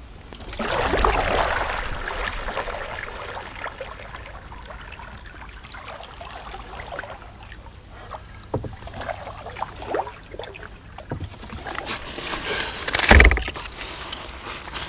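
Water splashing and sloshing around a kayak being brought in to the bank. Scattered knocks follow, then one heavy thump about thirteen seconds in.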